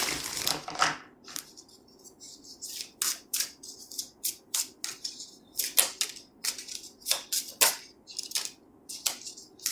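A tarot deck being shuffled briefly, then a run of separate sharp card snaps and slaps, irregular and roughly two a second, as cards are pulled from the deck.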